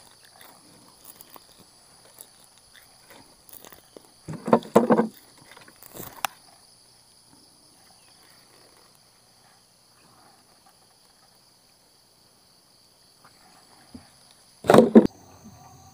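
Insects buzzing steadily in two high-pitched tones. A voice is heard briefly about four seconds in and again near the end, with a sharp click around six seconds in.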